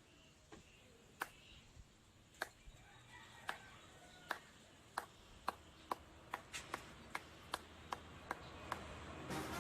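A series of short, sharp taps or clicks, about a second apart at first and then quickening to two or three a second, with music coming in near the end.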